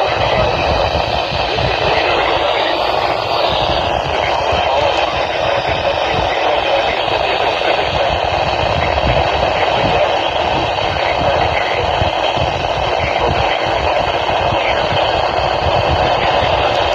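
Loud, steady radio static from a poorly received weather-alert broadcast, with the voice reading the severe thunderstorm warning faintly audible beneath the hiss.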